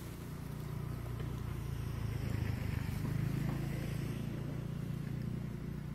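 Low rumble of a passing motor vehicle's engine, growing louder through the middle and easing off near the end.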